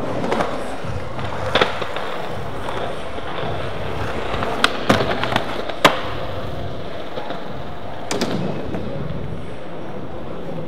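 Skateboard wheels rolling steadily over concrete and ramps, with sharp clacks of the board hitting down: one early, a quick cluster around five seconds in, and another a little after eight seconds.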